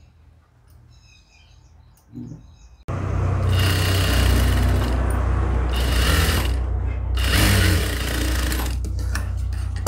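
Jack industrial sewing machine starting abruptly about three seconds in and then running steadily at speed with a deep motor hum, stitching gathered layers of net fabric.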